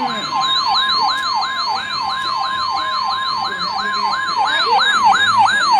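Emergency alert warning signal: a steady electronic tone with a siren-like sweep over it, repeating about three times a second, each sweep falling in pitch.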